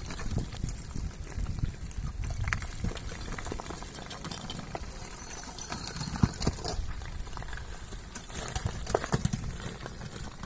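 The front of an advancing block ('a'a) lava flow, its cooling blocks cracking, clinking and tumbling as they break away. The cracks come scattered and irregular over a low steady noise, with a few sharper ones now and then.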